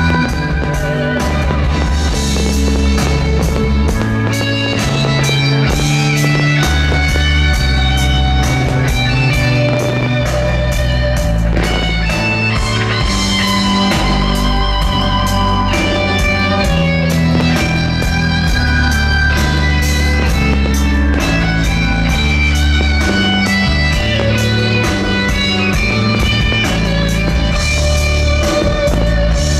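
Music with guitar over a steady beat and bass line.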